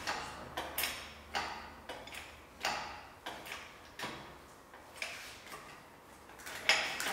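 Irregular sharp knocks and clicks, one or two a second, each with a short echoing tail.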